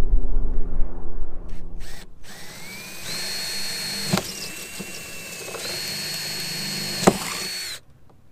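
A low steady hum fills the first two seconds. Then a cordless drill spins up with a rising whine and runs at a steady high pitch into the deck. It stops briefly about four seconds in, runs again, and cuts off near the end, with a sharp click in between.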